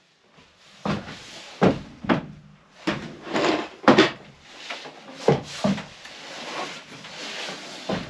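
Wooden knocks and clatter as a ladder-style roost of poplar boards is handled and set in place against the coop's board walls: about a dozen irregular knocks with scraping between them.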